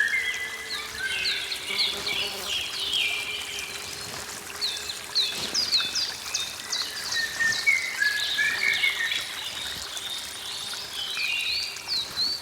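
Forest birds chirping together, many short overlapping calls and twitters. A faint steady low hum sits underneath and fades out about halfway through.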